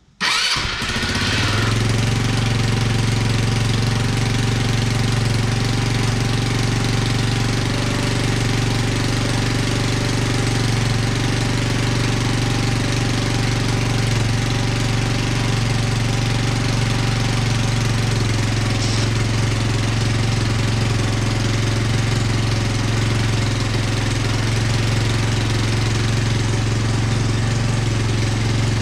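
Teyin Falcon 200 scooter engine starting right at the beginning and settling into a steady idle, its muffler freshly repaired.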